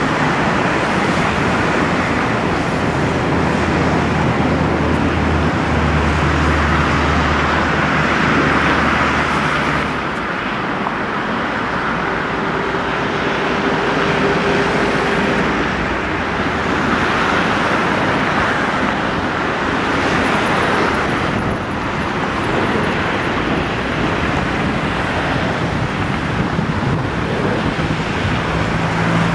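JAS 39 Gripen fighter's single Volvo RM12 turbofan on landing approach, a loud, steady jet rush, with a low hum underneath for the first ten seconds or so.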